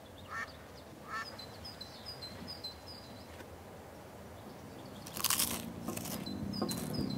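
Crisps crunching in a mouth: a few loud crunchy bites starting about five seconds in. Small birds chirp throughout, a duck quacks twice near the start, and a car engine begins to come closer near the end.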